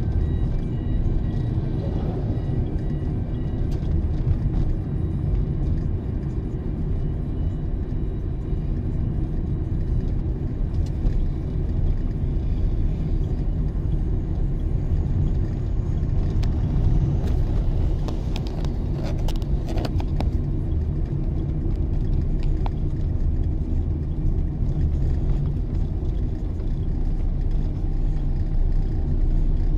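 Steady low rumble of a vehicle's engine and tyres as it drives slowly over concrete paving. A few short clicks or rattles come about two-thirds of the way through.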